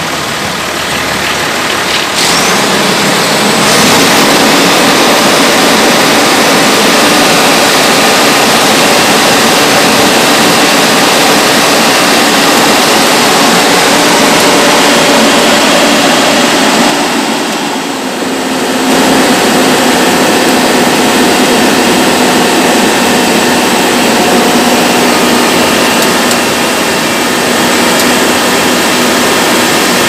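Wheeled asphalt paver's diesel engine and machinery running loud and steady at close range while it lays bituminous hot mix, with a brief dip about seventeen seconds in.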